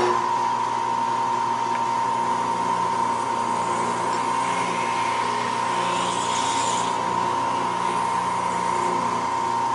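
WWII army-surplus drill press running steadily with a precision fly cutter, milling wood off the top of a piano key: an even motor hum with a steady high whine.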